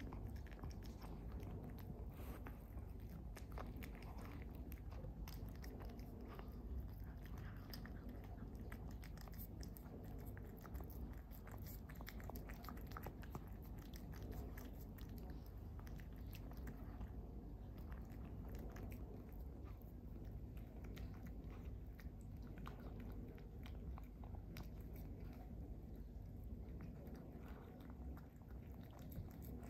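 A grey cat chewing and licking up flaked tuna from a plate: a steady run of small wet smacks and clicks.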